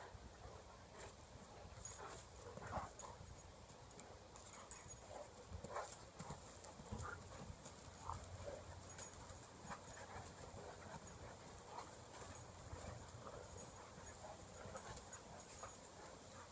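A mastiff and a Saint Bernard play-wrestling: faint, scattered short huffs and scuffles from the two big dogs, coming irregularly throughout.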